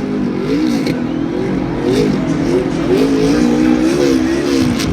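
NASCAR stock cars' V8 engines running at speed on the track, several engine notes rising and falling in pitch as the cars pass in a pack.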